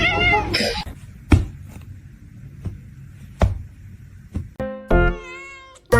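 A cat meows at the start, followed by a few scattered single thumps. Near the end comes a long wavering pitched tone.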